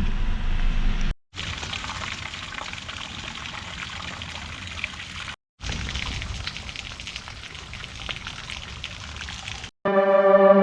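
Rain falling steadily, with many small drop hits, in two stretches separated by short abrupt silences. Keyboard music comes in near the end.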